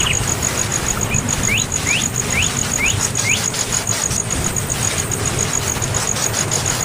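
A bird giving a quick run of five short rising chirps, about two a second, over a steady fast high-pitched pulsing and a low rumble.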